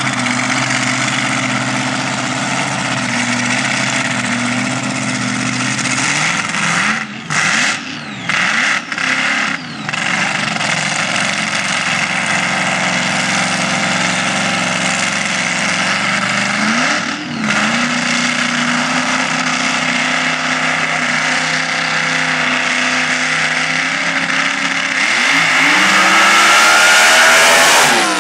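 Supercharged alcohol-burning Hemi V8 of a top alcohol sand dragster idling steadily, with a few brief gaps in the sound early on and a short blip of the throttle about two-thirds of the way through. Near the end it is revved hard for the launch, getting louder with its pitch rising as the car pulls away.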